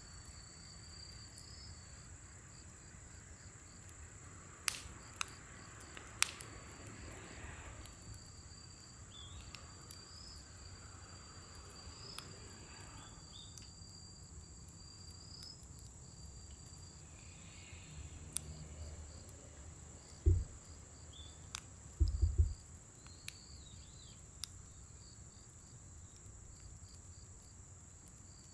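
Crickets chirping steadily, with scattered sharp pops and crackles from scrap wood burning in a fire pit. A few low thumps come about two-thirds of the way through.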